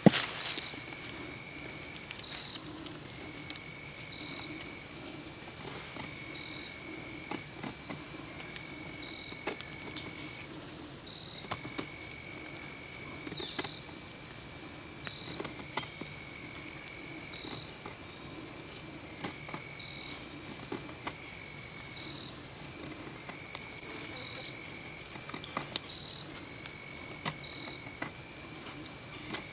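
A steady chorus of insects: a high trill that breaks off now and then, with a short higher chirp repeating about once a second. Over it come light scrapes and ticks of a knife shaving a stick of fatwood.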